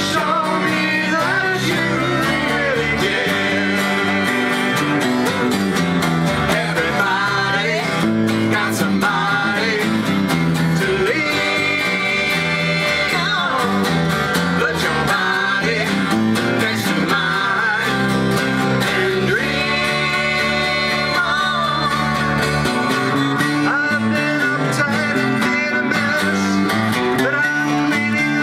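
A string band playing live: strummed acoustic guitar under a man's and a woman's voices singing together.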